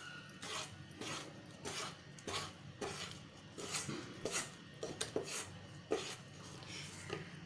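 Wooden spatula scraping and stirring thick kaju katli paste (ground cashews in sugar syrup) around a nonstick kadai, a steady run of short scrapes about two a second as the dough is worked in the pan's own heat.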